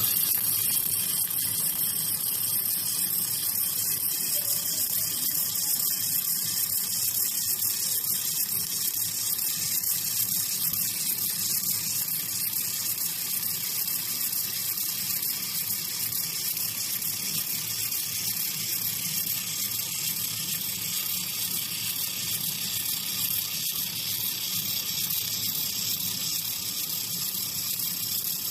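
Handheld fiber laser welder with wire feed running continuously: a steady hiss with a low hum underneath.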